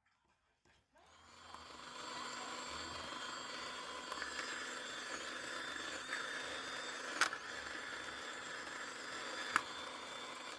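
Small portable mini washing machine running: a steady motor whir that starts about a second in, with two sharp clicks along the way.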